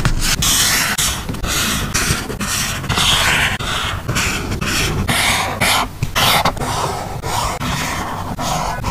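Paper and stickers handled close to the microphone: a quick run of short scratchy rustles and scrapes, several a second, with brief gaps between them.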